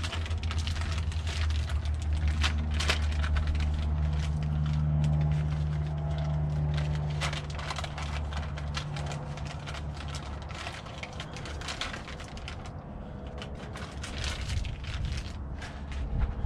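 Scattered clicks and light knocks of replacement grill parts being handled, over a low steady hum that fades out about ten seconds in.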